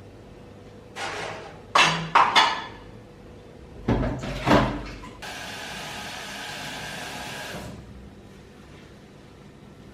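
Several sharp knocks and clatters, then a few heavier thuds, then a steady hiss lasting about two and a half seconds.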